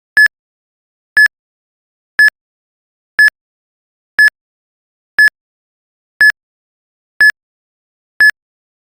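Countdown timer's short electronic beep, repeated once a second, nine times, marking off the final seconds of the countdown.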